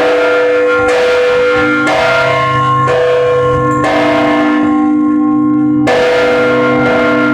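Church bells of St John's Co-Cathedral ringing together, several bells of different pitch sounding at once. A fresh stroke comes about once a second, and the tones ring on and overlap between strokes.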